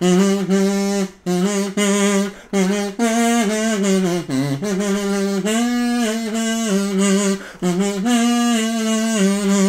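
Kazoo playing a melody in short buzzy notes, with brief breaks between phrases and a quick dip in pitch about four seconds in.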